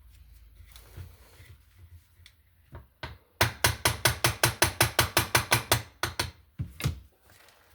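A quick, even run of about twenty sharp metallic clicks, about seven a second, from parts being worked loose on a marine autopilot linear actuator as its roll pin is removed. A few scattered light knocks come before and after the run.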